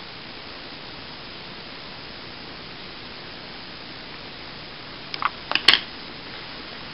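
Steady microphone hiss, with a quick cluster of four or five sharp clicks and taps a little past five seconds in, the last one the loudest: handling noise as the magnifier is moved off the stamp album page.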